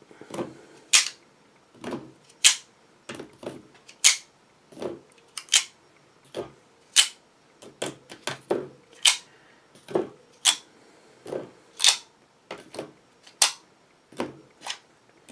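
9mm cartridges being thumbed out of a Glock 17 magazine one at a time, each round giving a sharp metallic click with a short knock, about one to two a second in an uneven rhythm.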